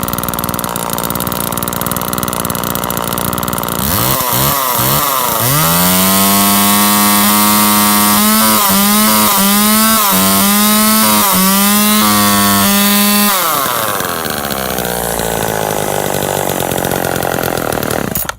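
Homelite XL two-stroke chainsaw test-run on a newly fitted chain. It idles, is blipped a few times about four seconds in, and is then held at full throttle for about seven seconds with four brief dips, before winding back down to idle. The sound cuts off suddenly just before the end.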